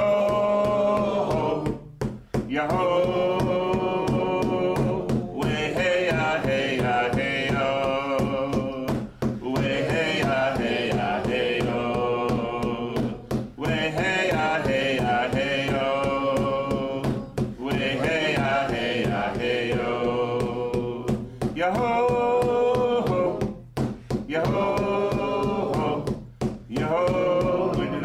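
Several voices singing a loon song together, a chant in phrases a few seconds long with short breaks for breath between them. The song imitates the call of the common loon.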